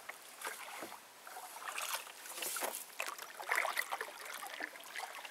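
Water lapping and trickling around a small fishing boat, with irregular light splashes and soft clicks.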